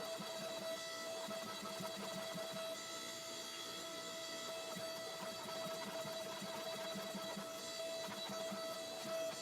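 Steady electric motor hum with a fast, low mechanical churning beneath it.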